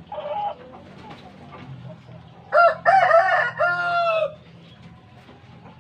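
A rooster crowing once, a cock-a-doodle-doo in three linked parts starting about two and a half seconds in.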